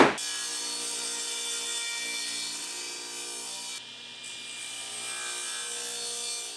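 A file or rasp worked steadily over wood, a continuous scraping as the mallet head's slot is cleaned up to fit the handle.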